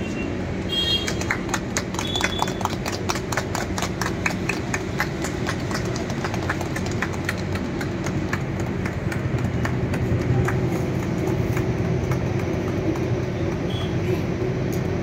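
A small group clapping hands together in a steady rhythm, about three claps a second, most regular in the first half and thinning out later, over a steady low hum.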